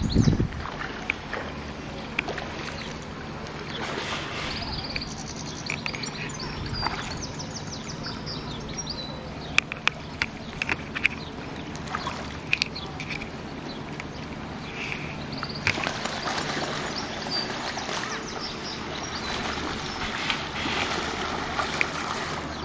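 Small birds chirping repeatedly while ducks splash about on a pond, over a steady low hum. About two-thirds of the way through, a broader rushing noise like water or wind rises.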